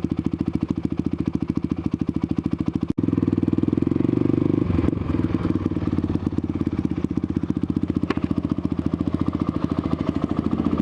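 Motorcycle engine running steadily as the bike is ridden, a fast even firing beat. It breaks off for an instant about three seconds in, then runs louder for a couple of seconds before settling back.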